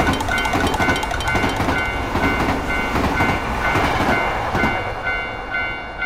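A railroad crossing warning bell dinging about twice a second over the rumble and clatter of a passing train. The train noise fades away about five seconds in while the bell keeps ringing.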